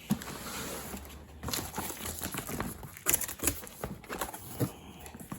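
Cardboard box being opened and its packaging handled: irregular rustling, scraping and light knocks.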